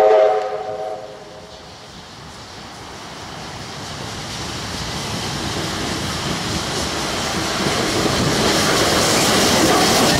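R707, a Victorian Railways R class 4-6-4 steam locomotive, gives a short whistle blast of several notes at once. The whistle stops about a second in. The engine then draws steadily closer and louder with the hiss of steam until it passes close by near the end.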